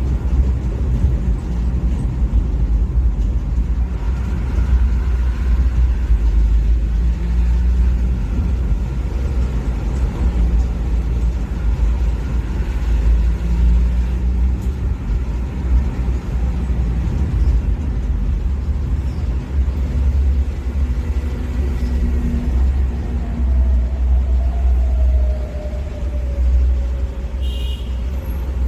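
Motor vehicle running with a steady, deep low rumble; a tone falls in pitch about three quarters of the way through.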